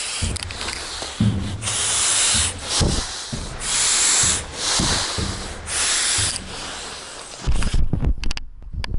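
Laboured breathing through a low-oxygen training mask, each breath a loud hiss through the mask's valves, about one every two seconds, with low thuds between breaths. Near the end come strained groans: the breathing of hard exertion, climbing stairs under heavy load with restricted air.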